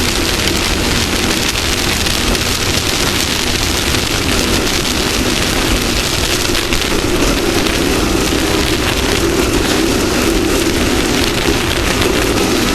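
Off-road race vehicle running at speed. Its engine drone sits under a loud, even rushing noise and grows a little stronger in the second half.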